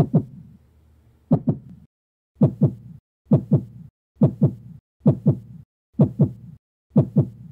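Heartbeat: a steady lub-dub of paired low thumps, eight beats at about one a second.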